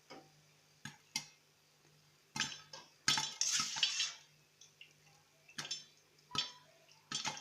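Scattered knocks and clinks from a covered metal popcorn pot on the stove, about nine separate hits with a denser clatter a little past the middle.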